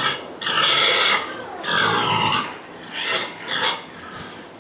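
Young gilts, about six to seven months old, vocalizing: two longer calls in the first half, then two short ones.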